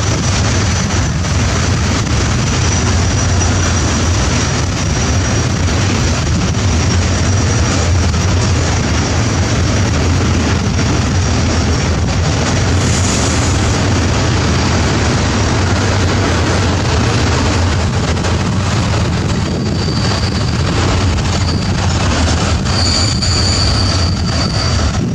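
Freight train passing through a station: a steady, loud rumble of wagons running over the rails. Thin, faint wheel squeals are heard near the start and again toward the end.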